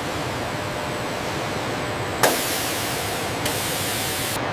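Steady factory background noise, then about halfway through a sudden loud hiss of air that lasts about two seconds, starting afresh once partway, before cutting off near the end.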